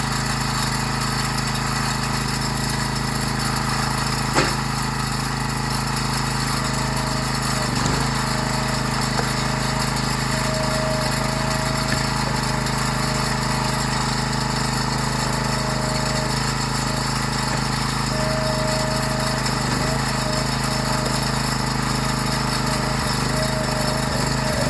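Gas-powered log splitter's small engine running steadily at constant speed, with a higher whine coming and going over it from about seven seconds in.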